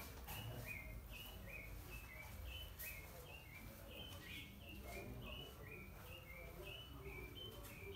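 A bird calling a steady, fast series of short two-note chirps, each note stepping down in pitch, about two to three a second, over a low background rumble.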